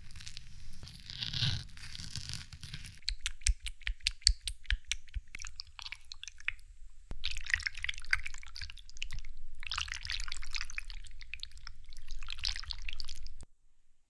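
Close-miked ASMR sounds of ice jelly being cut and handled: a run of rapid small wet clicks, then three longer hissy bursts of a second or two each, stopping abruptly near the end.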